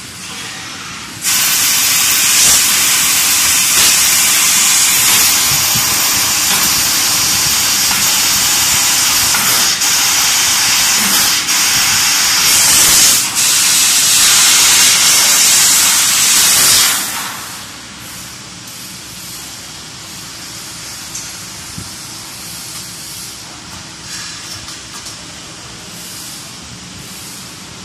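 Fiber laser cutting machine hissing loudly as its assist-gas jet blows through the nozzle while the head cuts sheet steel. The hiss starts about a second in and cuts off sharply about two-thirds of the way through, leaving a much quieter steady machine noise with a few light ticks.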